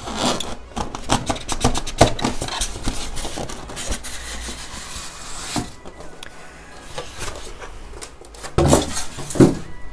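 Polystyrene foam packing being pried loose and pulled out of a cardboard carton: foam rubbing and scraping against cardboard, with scattered clicks and knocks. Louder handling noise near the end as the foam comes free.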